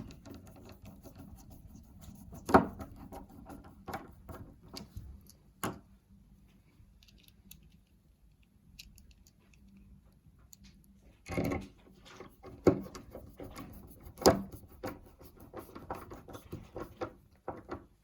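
Screws being driven by hand into a door handle's backplate with a Phillips screwdriver: irregular small clicks and scraping, with a few sharper knocks about two and a half seconds in and again around the two-thirds mark.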